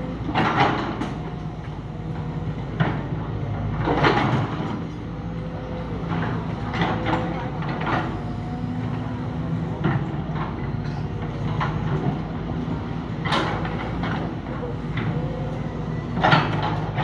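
Excavator's diesel engine running steadily while dredging mud, with a few short, louder bursts of noise from the working machine.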